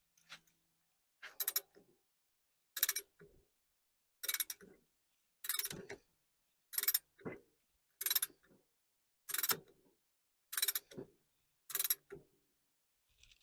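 Hand tube bender working steel hydraulic tubing in repeated strokes: a sharp metallic click followed by a lower clunk, about nine times at an even pace of roughly one every second and a half.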